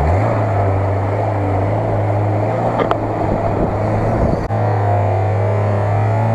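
Lada Niva's engine revving hard and held high as its wheels churn through deep mud; the pitch climbs right at the start and then stays steady.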